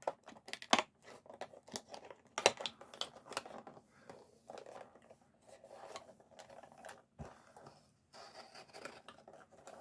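Knife blade cutting through a plastic blister pack and its cardboard backing card: irregular scratching and crackling of the plastic, with sharper clicks, the loudest about a second and two and a half seconds in.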